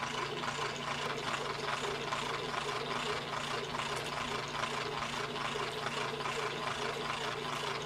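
A drill running steadily, with a constant hum and a fast, even rattle.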